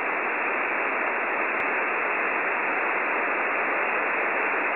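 uSDX HF QRP SDR transceiver in receive on 14.075 MHz USB, its speaker giving a steady hiss of band noise with no signal in it, muffled with no treble. A single click comes about a second and a half in.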